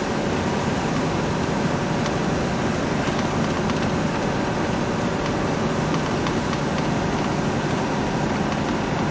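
Steady driving noise heard from inside a moving vehicle: engine running and tyres on wet pavement, an even noise with no changes.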